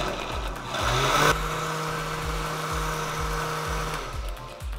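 Countertop blender motor pureeing a wet salsa of avocado, tomatillos and greens: it speeds up with a rising whine about a second in, runs at a steady pitch, then stops about four seconds in.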